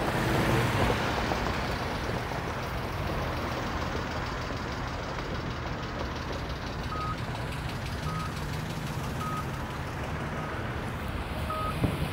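Steady street traffic with a low engine hum. From about seven seconds in, a vehicle's backup alarm beeps about once a second, and a single knock comes near the end.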